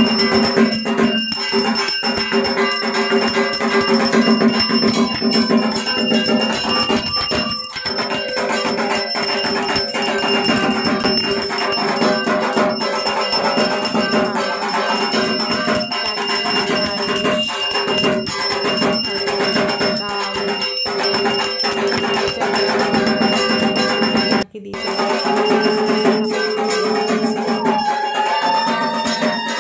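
Puja bells ringing continuously together with music during the worship, with many steady ringing tones held throughout; the sound breaks off for a moment about three-quarters of the way through.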